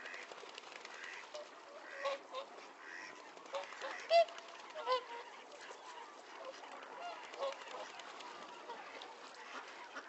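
A wildfowl flock calling, with scattered honks over a steady background hiss; the two loudest honks come less than a second apart near the middle.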